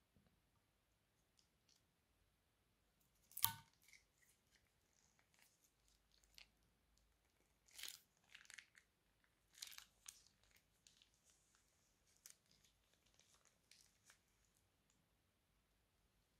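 Faint, scattered crinkles and clicks of a plastic piping bag being squeezed as purple slime is pushed out onto clear slime. There is one sharper click about three and a half seconds in and small clusters near the middle.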